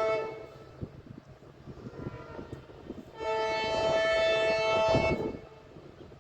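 Indian Railways locomotive air horn: the tail of one blast right at the start, then one long blast of about two seconds beginning about three seconds in, two tones sounding together. A low rumble with scattered knocks of the train runs underneath.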